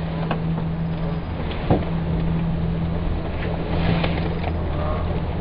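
Steady low hum and rushing noise of a moving cable car gondola, heard from inside the cabin, with a few faint clicks.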